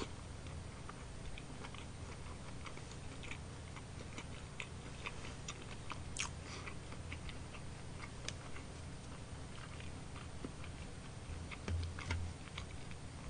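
Close-up chewing of a fried cheese ball: small crunches and mouth clicks scattered throughout. A low knock comes near the end as a fork goes into the takeout container.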